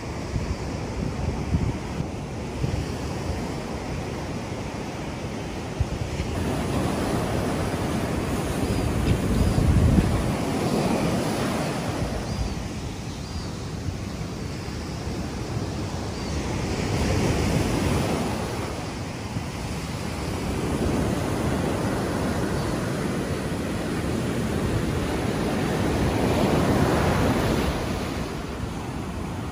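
Ocean surf breaking and washing up a sandy beach, swelling and easing in three slow surges, the first the loudest.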